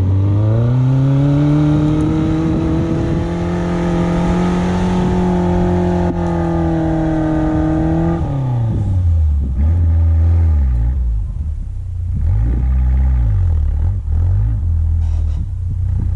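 Suzuki SJ410's small four-cylinder engine revving up in the first second and held at high revs for several seconds under load. About eight seconds in the revs drop sharply, then rise and fall several times in shorter bursts.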